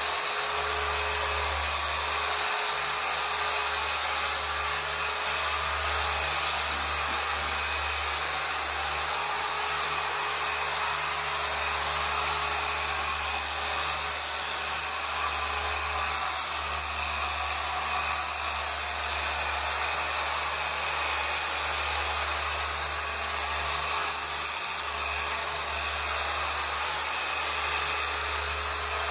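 Electric mattress-cleaning machine running steadily with a continuous motor whine and hiss, either a dual-action orbital polisher scrubbing or a Rug Doctor extractor vacuuming.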